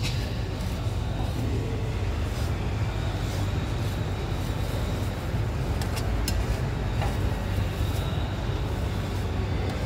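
Metal spatulas scraping and spreading ice cream across a steel cold plate over a steady low rumble, with two sharp metal-on-metal clicks about six seconds in.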